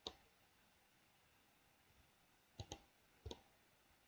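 Computer mouse clicking against near silence: one click at the start, then a quick double click and one more click a little later.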